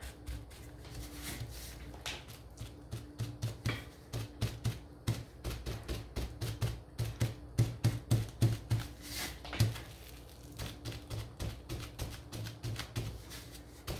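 Crumpled bubble wrap loaded with paint dabbed again and again onto a wooden windmill cutout lying on a tabletop: soft, irregular taps, several a second, heaviest around the middle.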